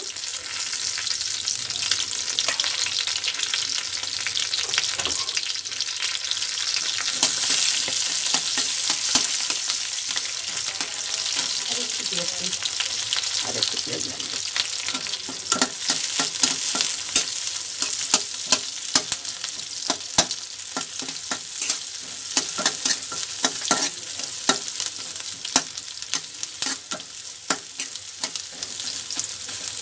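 Chopped onion, green chillies and bay leaves sizzling in hot mustard oil in a karahi. From about halfway, a metal spatula stirs them, scraping and clicking against the pan.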